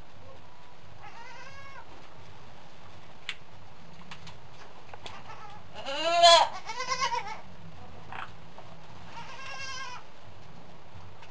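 Goats bleating: a doe and her newborn twin kids. Thin, high bleats about a second in and again near the end, and the loudest, lower bleat about six seconds in, followed at once by a short quavering one.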